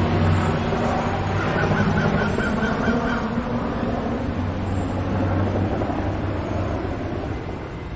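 Helicopter over a city, its rotor and engine making a steady low drone, with a quick run of about eight short high beeps about two seconds in. The drone slowly fades toward the end.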